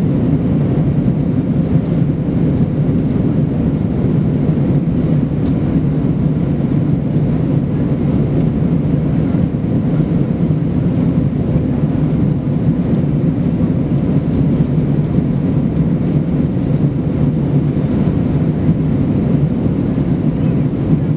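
Cabin noise of a British Airways Airbus A320 in flight after take-off: the jet engines and rushing air heard from a seat over the wing, a steady low drone.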